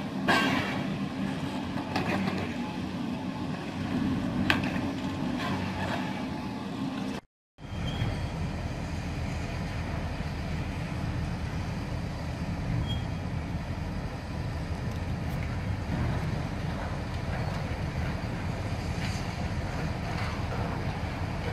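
Demolition excavators at work: diesel engines running, with scattered clanks and crashes of rubble and metal being pulled down. After a brief cut-out about seven seconds in, a steady engine rumble from a Cat 330C excavator follows, with only faint knocks.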